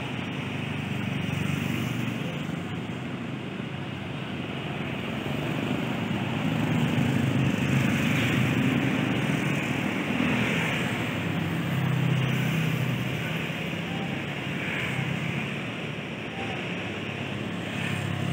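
Steady low rumble of vehicle engines and road traffic, growing louder between about six and thirteen seconds in.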